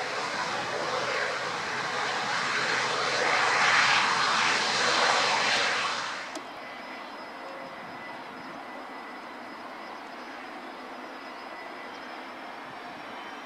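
Loud rush of a TAROM ATR 42's turboprop engines and propellers as it rolls down the runway after landing, building to a peak, then cut off suddenly about six seconds in. After the cut, the quieter, steady sound of an ATR 72 turboprop on approach, with a faint high whine that rises slowly near the end.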